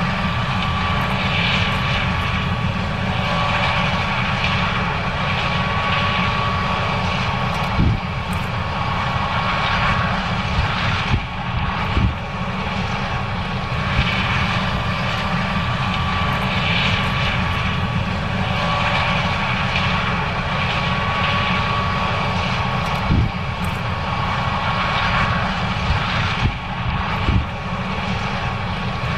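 John Deere 9610 combine running steadily under load while harvesting corn: a continuous diesel and machinery rumble with a thin steady whine, and a few brief knocks.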